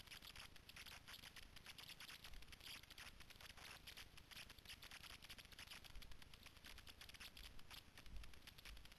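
Faint, continuous crackling and rustling of footsteps through dry leaf litter, twigs and undergrowth, with a few dull bumps.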